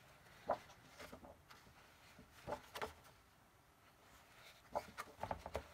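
Faint handling of a large hardcover book: a few soft paper rustles and light taps as a page is turned and the book is handled, with a small cluster of them near the end.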